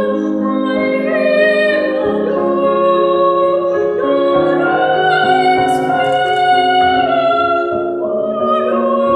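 Music: a singer in a classical, operatic style holding long notes with vibrato over instrumental accompaniment.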